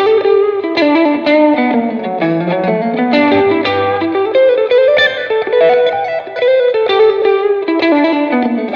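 Fender Stratocaster Elite electric guitar playing quick single-note melodic runs that step down, climb again and fall back.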